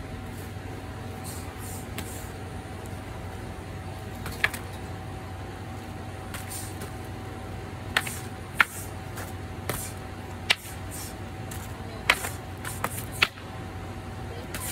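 Kenjutsu sparring with a wooden practice sword against a foam pool noodle: quick swishes through the air and about eight sharp knocks at irregular intervals as blows land. A steady low hum underlies it all.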